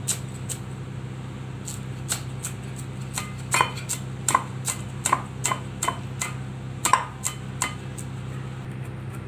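Kitchen knife finely chopping fresh coriander leaves on a board: irregular sharp taps of the blade striking the surface, about two a second, over a steady low hum.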